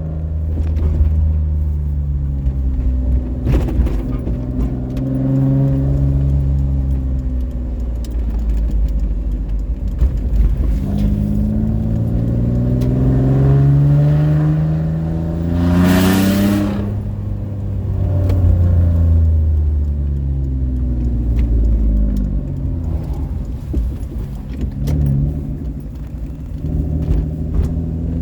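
1999 Mercury Cougar's V6 running through a straight-through exhaust with a de-cat pipe. The exhaust note climbs and falls several times, and the longest climb peaks about halfway through with a brief loud rushing noise. The uploader calls the note crisp rather than raspy.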